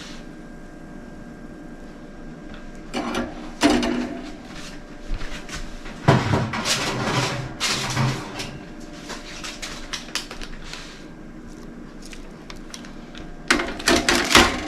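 Kitchen clatter of an oven door and a metal baking tray: knocks about three seconds in, a longer rattle with a low thud around six to eight seconds, and a quick run of clicks near the end.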